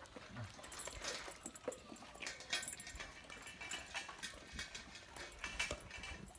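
Dogs crunching and gnawing on meaty bones: a run of irregular clicks and cracks.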